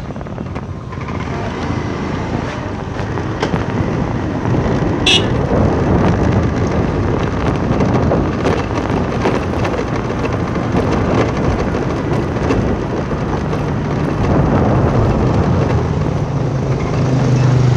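Vehicle driving through narrow streets: steady engine and road rumble with some wind on the microphone. A brief sharp high sound comes about five seconds in, and a low engine drone swells near the end.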